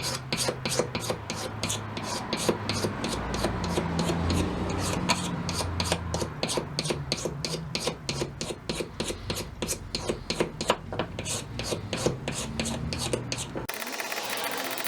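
Razor blade scraping old finish off a wooden hammer handle in quick repeated strokes, about four a second. Near the end the scraping cuts off and a different steady sound takes over.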